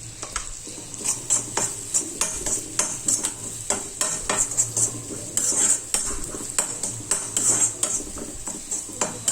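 Onions and garlic frying in oil in a kadai, being stirred: a utensil scrapes and clinks against the pan over and over at an uneven pace, over a light sizzle. The salt just added is being stirred in.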